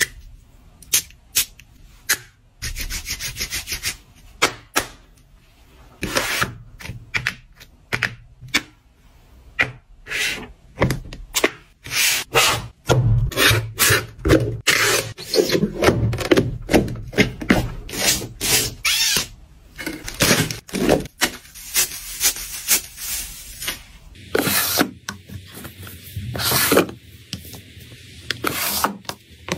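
Hands packing an order at a table. Cardboard is folded and rubbed, and small keychain items are picked up and set down, making many sharp taps and clicks with stretches of rustling.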